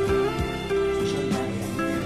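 Background music: a melody of held notes over a lower accompaniment.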